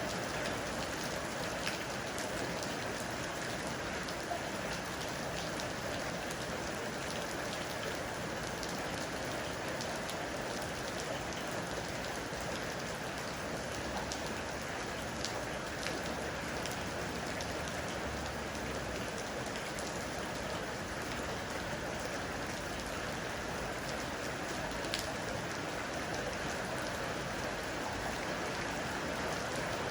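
Heavy rain falling steadily, with sharp ticks of single drops striking hard surfaces here and there.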